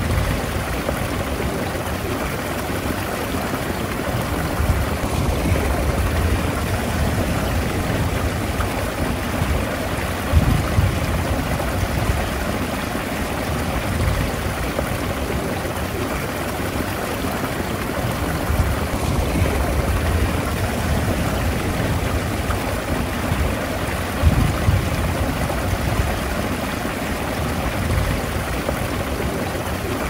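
Small ripples lapping on a wet sandy shoreline: a steady, continuous wash of shallow water, with a couple of slightly louder laps.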